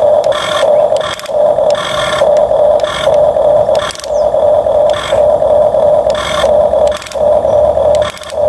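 Small electric motor of a toy excavator whining at one steady pitch in short runs of about a second, stopping and starting again, with scraping and rattling as it works in sand.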